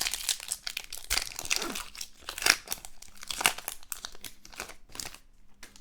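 Foil wrapper of a trading card pack crinkling and tearing as it is opened by hand: a dense run of crackles that eases off near the end.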